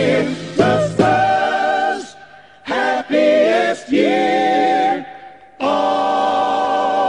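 Music: voices singing long held, slightly wavering notes, in phrases broken by two short pauses.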